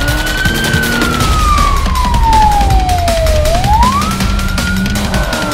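Emergency-vehicle siren in a slow wail: the pitch rises quickly, then falls slowly over about three seconds, and the cycle starts again partway through.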